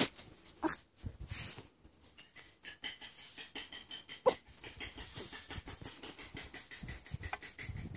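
Yorkshire terrier panting fast as it plays with a ball, with one short whine about four seconds in. A few soft knocks come near the start.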